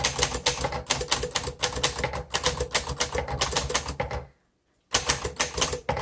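1949 Underwood Champion Finger Flite manual typewriter being typed on at a quick pace: a rapid run of key strikes and typebar clacks, several a second. The typing breaks off into silence for about half a second near the end, then resumes.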